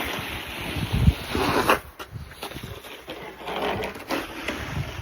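Snow shovel scraping and pushing snow across a driveway in two long strokes, with a low thump about a second in.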